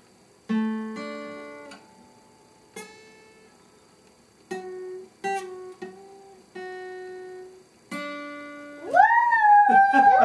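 Acoustic guitar played in a loose, sparse way, single strummed chords and plucked notes each left to ring out. About nine seconds in a high voice comes in loud over it, a long held note that slowly slides down.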